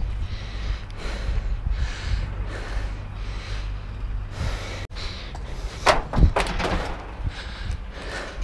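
Wind rumbling and buffeting on an action camera's microphone, with two sharp knocks about half a second apart roughly six seconds in.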